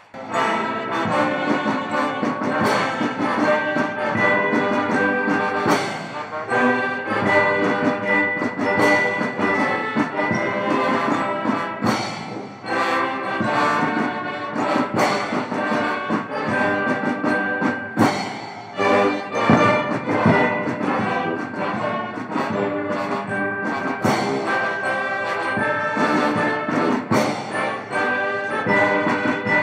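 Military brass band striking up abruptly and playing a ceremonial salute for the president, with brass and regular drum beats.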